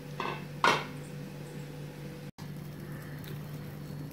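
A stainless-steel pan lid set down onto a pan of boiling fish: two short clinks within the first second, the second louder, over a steady low hum.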